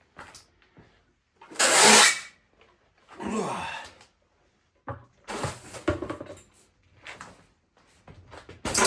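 A 10-gallon pancake-style air compressor being rolled back and forth on its freshly bolted-on wheels, in a few separate bursts of rolling and clunking; the loudest comes about two seconds in.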